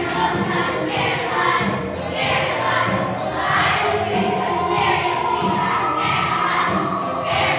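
A choir of third-grade children singing with musical accompaniment.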